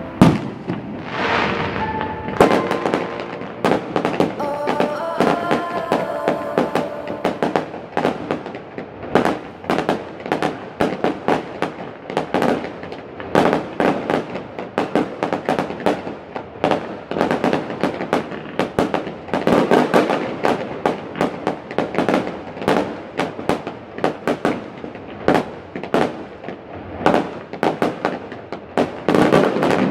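Aerial fireworks bursting in a rapid, near-continuous run of bangs, several a second, with one loud bang right at the start.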